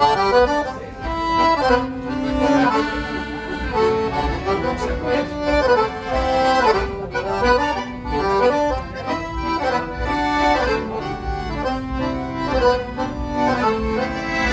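Accordion music playing the instrumental introduction of a waltz: a melody line over a steady bass accompaniment.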